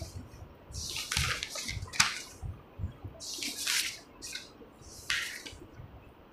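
A series of short hissing swishes, about half a dozen, irregularly spaced, with no speech.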